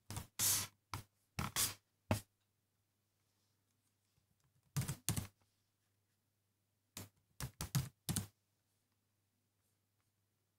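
Keys typed on a laptop keyboard in short runs of clicks: several keystrokes in the first two seconds, a pair about five seconds in, and a quick run around seven to eight seconds in.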